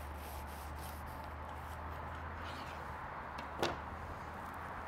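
A knife cutting down through the baked pastry crust of a pie on a wooden board, with faint crunching, and one sharp knock about three and a half seconds in. A low steady hum runs underneath.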